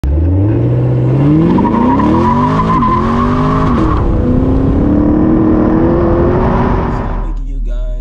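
Chevrolet Camaro SS's 6.2-litre V8 with a cat-deleted exhaust accelerating hard. The engine's pitch climbs steadily, with brief drops about three and four seconds in as it shifts up. A high whine runs alongside it over the first four seconds.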